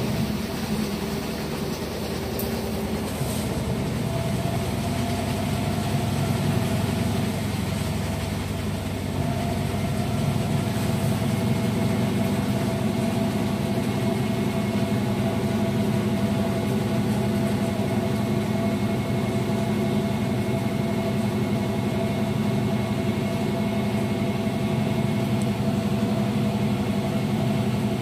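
Toshiba AW-J800A-PH 7 kg top-loading fully automatic washing machine spinning fast: a steady mechanical hum with a few held tones.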